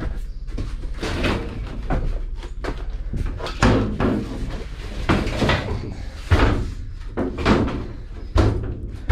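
A heavy scrap piece, likely aluminum, being turned and shoved into place while loading: a run of knocks and thumps, about five loud bangs, with clattering between them.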